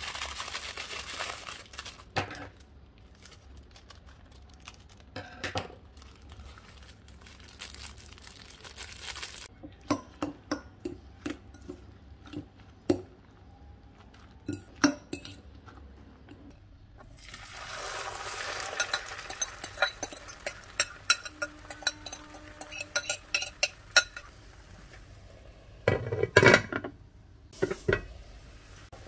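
A metal fork clinking against a glass bowl as raw egg and instant noodles are mixed. Then the mixture sizzles in a hot frying pan, and the pan's glass lid clatters loudly near the end.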